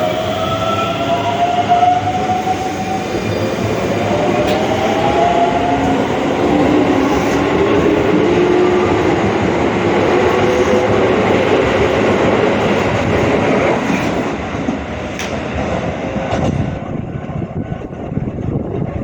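Electric commuter train pulling out of a station. Its traction motors whine in several tones that rise in pitch as it accelerates, over a steady wheel-on-rail rumble with a few clicks, and the sound thins out near the end as the train moves away.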